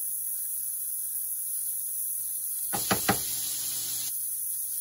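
A metal knife knocks twice on a griddle pan about three seconds in, while butter is being added. A steady high hiss runs under it.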